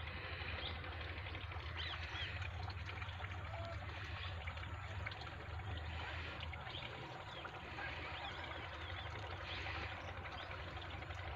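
Quiet outdoor background: a steady hiss with a few faint, brief chirps and a low steady hum underneath.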